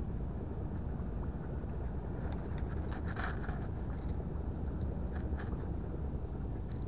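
Steady low outdoor rumble, with a few faint clicks and rustles about three seconds in and again near five seconds from hands handling fishing line and tackle.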